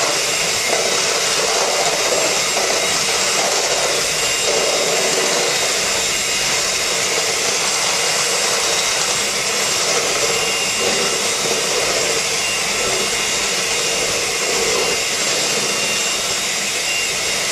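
Electric hand mixer running steadily, its beaters whirring through red velvet cake batter in a steel mixing bowl.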